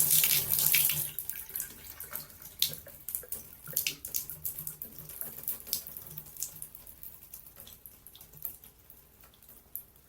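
Running water that stops about a second in, followed by scattered drips and small splashes that thin out and fade.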